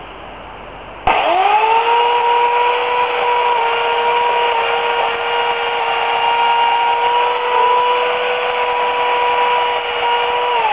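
Remington Limb N Trim 8-amp corded electric chainsaw switching on about a second in, its motor and chain quickly spinning up to a steady high whine that holds for about nine seconds. Near the end the pitch falls as the motor winds down, its power lost when the extension cord pulls out.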